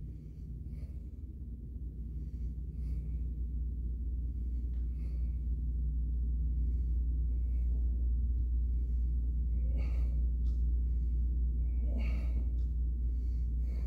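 A man breathing in short puffs every second or two with the effort of dumbbell presses on an exercise ball, over a steady low hum.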